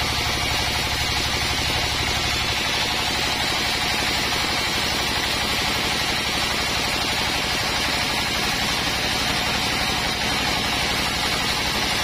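Band sawmill sawing through a teak log: a steady, loud machine noise of the running saw and its drive, an even low hum under a dense hiss of the blade in the wood.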